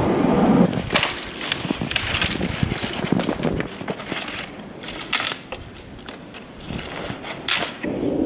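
Wind noise on the microphone stops in the first second. Then come irregular crunching and snapping sounds, sharp cracks about a second apart, as snow-covered brush and dry stems are trodden and broken.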